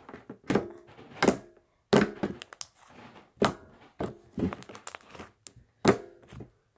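Thick pink butter slime squeezed, pressed and poked by hand, giving a dozen or so sharp, irregular clicks.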